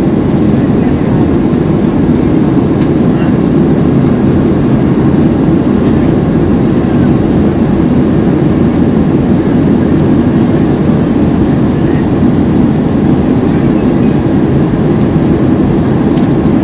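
Steady cabin noise of an airplane in flight: the even, unbroken rush of engines and airflow heard from inside the cabin.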